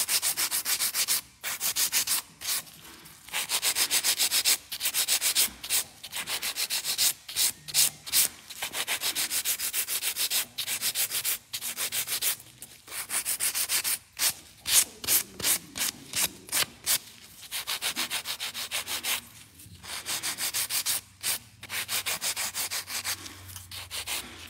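A hand nail file rasping back and forth along an acrylic nail in quick, even strokes, in runs broken by short pauses, as the stiletto shape is filed in.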